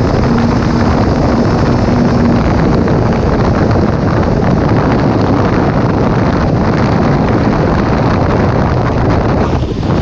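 Wind buffeting the microphone over the road and engine noise of a sport motorcycle riding at highway speed, loud and steady, with a faint engine hum in the first couple of seconds.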